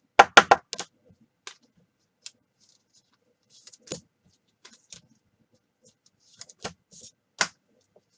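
Clear acetate trading cards clicking and clacking as they are handled, squared into a stack and set down on a table: a quick run of three or four sharp clicks right at the start, then scattered single taps, with two louder ones near the end.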